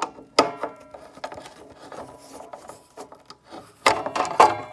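A screw on a miter saw's blade guard assembly being worked out and the parts handled. A sharp click comes about half a second in, then light scratching and ticking, and a burst of louder knocks and clatter near the end.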